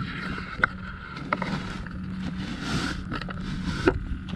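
A few sharp clicks and knocks with a short rustle, from gear being handled on a boat, over a steady low hum.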